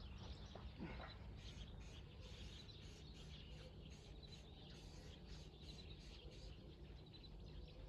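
Near silence: faint outdoor ambience with a low steady rumble and faint, repeated high bird chirps.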